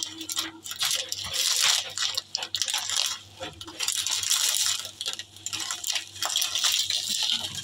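Kitchen items being handled, with repeated clinking and rattling in a series of short bursts.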